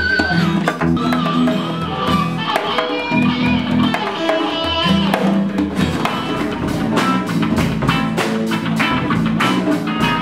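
A band jamming: an electric guitar plays a wavering lead line over bass guitar notes, with a djembe and a drum kit. The drum hits come in strongly and steadily about six seconds in.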